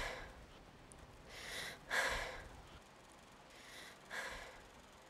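A person breathing heavily, a breath in and out about every two seconds.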